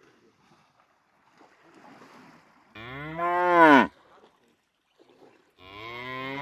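Water buffalo calling: one loud, low moo about three seconds in whose pitch drops as it ends, and a second call starting near the end.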